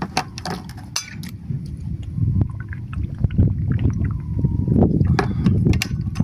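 Kitchen clatter: irregular knocks and clinks of a cooking pot and utensils, with water sloshing as the pork is set to boil.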